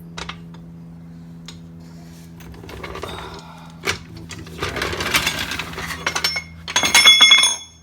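Hydraulic floor jack being released to let a car down. A few clicks come first, then a rattling, hissing noise from about halfway. Near the end comes the loudest part, a high-pitched metallic squeal, which stops suddenly. A steady low hum runs underneath.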